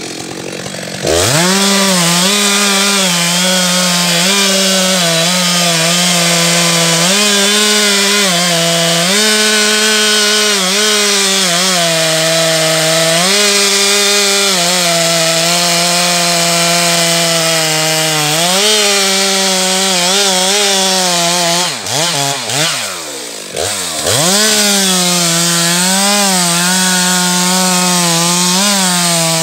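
Stihl MS 462 two-stroke chainsaw revving up about a second in and cutting through beech wood at high throttle, its pitch sagging and recovering as the chain loads in the cut. Around 22 seconds in the engine drops off briefly and revs back up before going on cutting.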